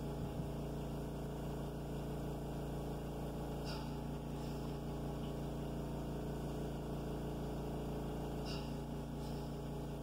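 Steady low electrical hum with several even tones. Faint clicks about four seconds in and again near the end, from the small jog switch of a NanoVNA being pressed.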